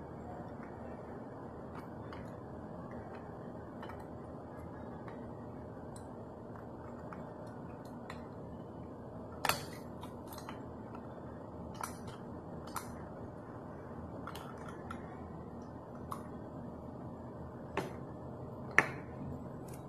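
Sharp plastic and metal clicks from a die-cast First Gear model front-load garbage truck being handled, its moving parts worked by hand: a handful of separate clicks from about halfway on, the loudest near the end, over a steady low background hiss.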